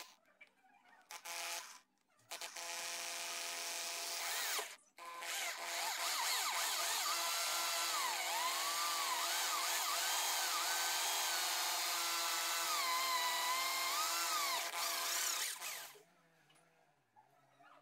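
Corded electric drill boring into a clamped wooden block with a long twist bit. A few short starts at first, then a steady run with a brief stop about five seconds in. Its whine rises and falls in pitch, and it stops about sixteen seconds in.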